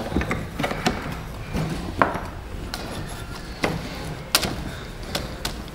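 Light metal clicks and taps of a hand-held bubble flare tool and its die being handled and fitted onto a brake line, with a few sharper knocks about two, three and a half, and four and a half seconds in.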